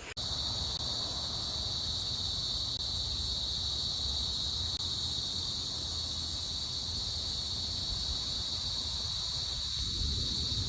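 A steady, high-pitched insect chorus that starts abruptly and drones without a break, over a low background rumble.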